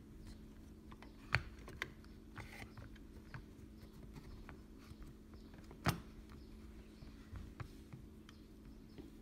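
Small clicks and taps from fingers handling a 1950s Kodak Pony 135 Model B camera and turning its lens barrel, with a few sharper clicks, the loudest about six seconds in.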